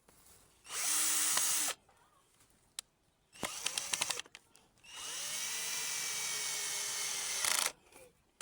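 Cordless drill-driver run in three bursts: a one-second spin, a quick run of rapid clicking, then a steady run of about two and a half seconds, as a wood screw is backed out of a board.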